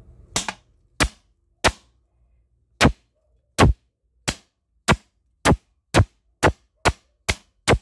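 Hammer blows knocking a new bearing into a washing machine's bearing housing: about a dozen sharp metallic strikes, spaced out at first and coming faster in the second half as the bearing is driven home.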